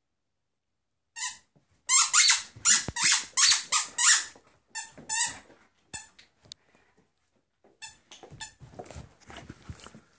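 Great Dane chewing a squeaky toy: one burst of squeaks about a second in, then a quick run of loud squeaks, and a few more spaced out, fading into softer scuffling near the end.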